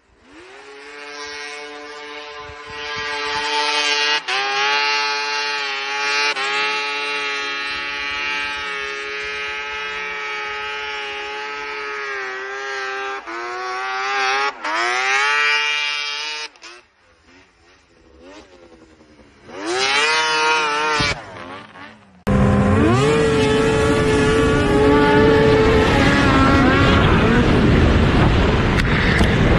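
Two-stroke triple snowmobile engines at high revs. A rising, high-pitched engine note holds near the top with small dips, then cuts off. A short second burst of revving follows. After a sudden cut, a louder, rougher engine sound comes in over a rush of wind noise.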